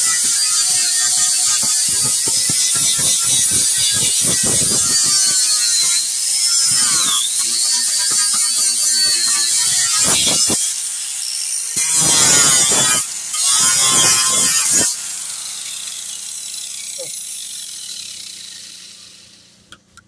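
Angle grinder with a sanding disc grinding down the fibreglass bottom of a boat hull, a steady high whine that dips in pitch as it bites. It gets louder in two spells about twelve to fifteen seconds in, then spins down and stops near the end.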